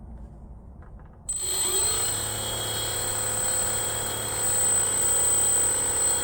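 A 900kv brushless electric motor starts a little over a second in and spins up an 11x5 3D-printed propeller. Its pitch rises briefly, then it settles into a steady low-throttle whir with a steady high whine over it.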